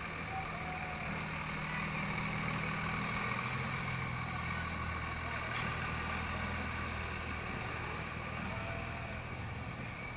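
Pickup truck engine running low and steady at crawling speed as the truck rolls slowly past, towing a float trailer; the engine sound fades near the end.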